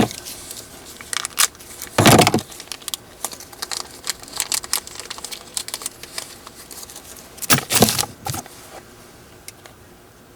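Small metal washers being handled and fitted into a skateboard wheel, with scattered light clicks and scrapes and two louder rustling clatters, about two seconds in and near eight seconds.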